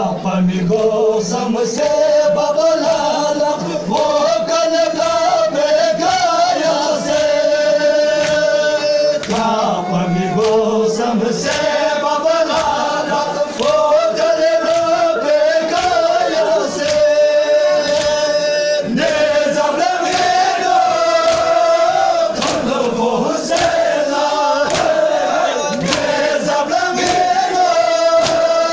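A crowd of men loudly chanting a Balti noha, a mourning lament, in unison to a repeating melody, with the slaps of chest-beating (matam) struck in time with it.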